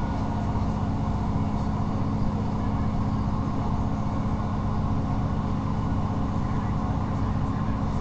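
Steady running noise inside the passenger saloon of a Class 158 diesel multiple unit under way: a constant low drone from the underfloor diesel engine mixed with the rumble of the running gear, with no sharp knocks.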